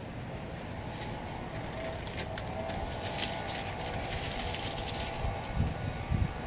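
Sanding on a car's door panel: a scratchy rubbing hiss in quick strokes, strongest in the middle and stopping about five seconds in, followed by a few low thumps.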